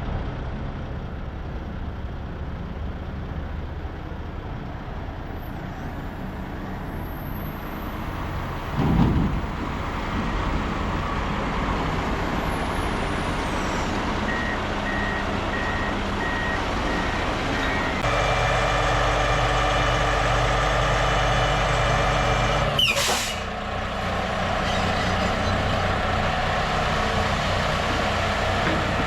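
Heavy diesel truck engine running steadily, with a short air hiss about 9 seconds in and a backup alarm beeping for a few seconds midway. The engine then runs louder for several seconds before a sharp air-brake release hiss, and it settles back to a steady run.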